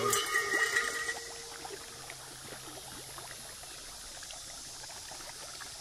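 Pond water splashing and sloshing as a dense crowd of catfish and snakeheads churns at the surface by the bank. Busier in the first second, then a steady run of small splashes.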